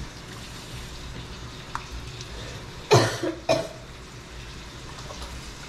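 A person coughs twice, about half a second apart, over a faint steady background hiss; the kitchen air is pungent with chili fumes from the sambal cooking.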